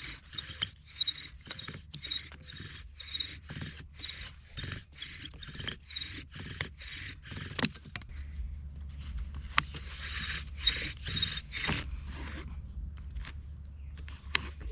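Bow drill in use: the wooden spindle grinds in the hearth board with each push and pull of the bow, in an even back-and-forth rhythm of about two strokes a second. Small high squeaks come through in the first half. The spindle is sticking in its bearing block, which the maker blames for the struggle.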